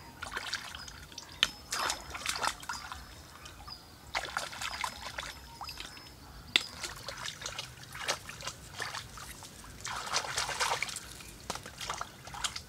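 Shallow paddy-field water splashing and trickling as hands scoop snails out of it, in irregular splashes a second or two apart.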